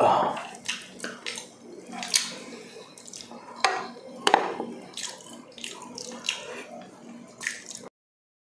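Close-up wet eating sounds: chewing and lip smacks, with fingers and a wooden spoon squelching through soft stewed beef in its sauce, a string of short moist clicks. The sound cuts out near the end.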